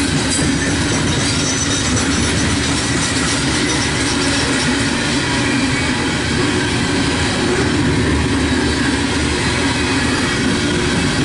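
Loaded freight train of steel coal cars rolling past close by: a loud, steady noise of steel wheels running on the rails.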